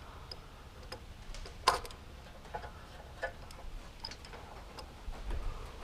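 Scattered light clicks and taps of small metal parts and tools being handled during carburetor fitting, with one sharper click a little under two seconds in.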